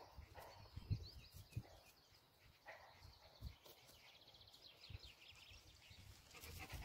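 Near silence in an open pasture, with faint birdsong (thin chirps and a quick trill about four seconds in) and a few soft low thumps.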